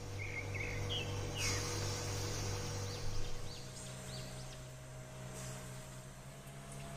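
A steady low hum that shifts slightly in pitch about halfway through, with a few faint bird-like chirps and one soft knock about one and a half seconds in.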